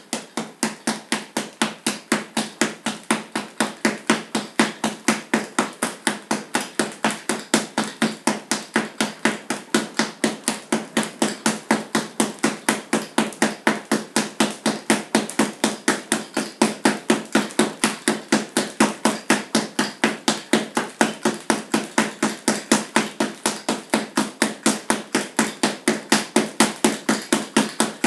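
Bare-knuckle Wing Chun chain punches on a blue double-end focus ball, pumped hard on tight bungees: a fast, even run of sharp slaps, about four to five a second, kept up without a break.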